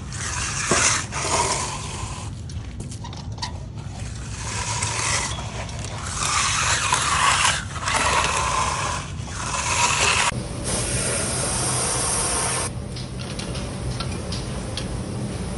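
Long-handled float scraping over wet concrete in several drawn-out strokes. The scraping stops about ten seconds in, giving way to a steady hiss and then light clicks.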